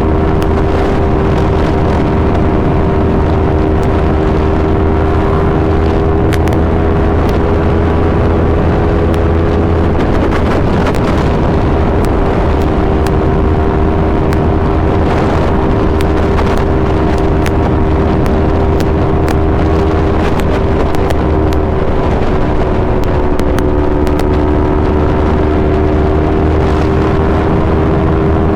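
Yamaha R3's 321 cc parallel-twin engine through an Akrapovic full exhaust system, held at steady, fairly high revs for the whole stretch, with only slight dips in pitch. A loud, steady rush of noise, heaviest in the low end, runs under the engine note.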